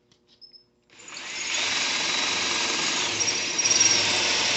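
An electric drill starts up about a second in and runs steadily, its titanium-coated high-speed steel bit cutting into the mild steel of a B-rated safe's wall, with a thin high whine over the grinding. A few faint clicks come before it starts.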